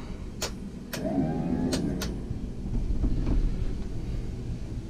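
A steady low rumble, with four sharp clicks in the first two seconds and a short creak about a second in.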